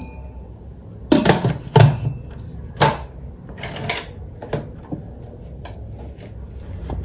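The stainless-steel lid of a Dessini electric pressure cooker being handled, set back on the pot and turned into place: a series of separate metal-and-plastic clunks and clicks, the loudest about one and two seconds in.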